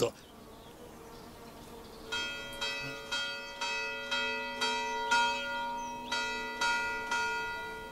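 Church bell tolling in a steady rhythm, struck about twice a second, each stroke ringing on into the next; the strokes begin about two seconds in.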